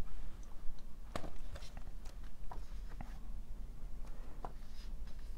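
Pages of an illustrated picture book being handled and turned: faint paper rustling with a few soft ticks, over a low steady hum.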